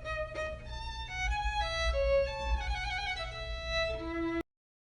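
A solo pitched instrument playing a short melody of changing notes over a low hum. It cuts off abruptly near the end.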